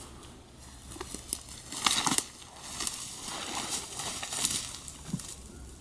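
Dry brush rustling and crackling, with a few sharp snaps; the loudest cluster comes about two seconds in.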